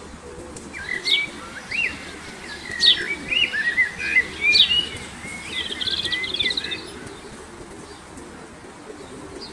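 Small birds chirping and whistling in short rising and falling calls, busiest in the first half, with a quick trill of notes about six seconds in, over steady low background noise.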